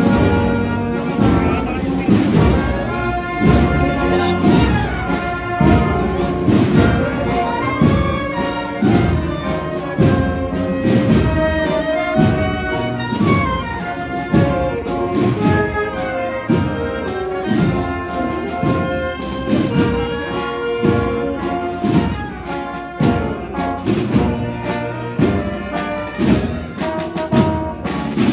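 Brass band music, trumpets and trombones playing held notes over a steady drum beat.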